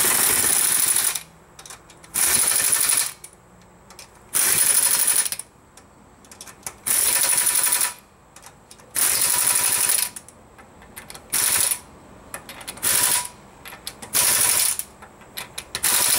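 Impact wrench hammering through an 80 ft-lb torque stick, tightening wheel lug nuts: about nine loud bursts of a second or less with short pauses between them as it moves from nut to nut, the later bursts shorter.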